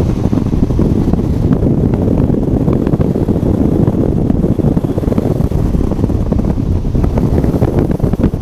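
Steady, loud low rush of wind over the microphone of a flexwing microlight trike gliding with its engine stopped, with no engine sound at all.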